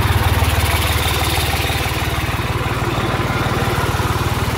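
Tractor diesel engine running steadily, driving a freshly greased, belt-driven farm machine in first gear.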